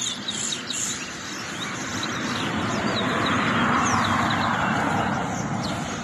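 Caged towa-towa seed finches singing in a song contest: short, quick, high whistled notes scattered through. Under them a broad rushing noise swells to its loudest a little past the middle and then fades.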